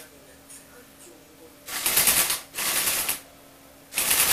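A Lego Technic rover's electric motors and gear train running in short bursts, a fast rattling whir: one starts a little under two seconds in, a shorter one follows, and a third starts near the end.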